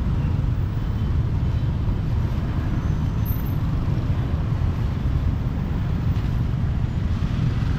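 Street traffic: a steady low rumble of motorbikes and cars passing along the road.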